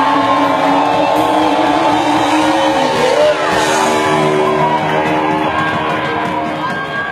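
Rock music with electric guitar, gradually getting quieter toward the end.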